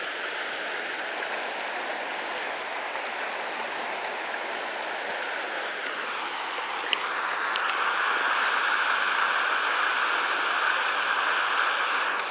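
A shallow river rushing over rocks in a steady wash of water noise, which grows louder and brighter about seven seconds in.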